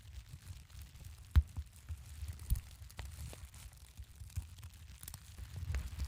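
Wood fire burning: irregular sharp crackles and pops, the loudest one about a second and a half in, over a low rumble of the flames.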